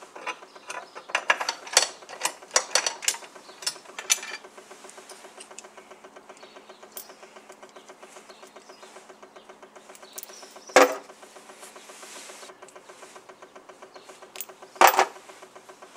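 Rapid clicking and rattling of a screwdriver working the screws that hold a wall charger's base plate to the wall, over the first four seconds. Then two sharp knocks, one about 11 seconds in and one near the end, over a faint steady hum.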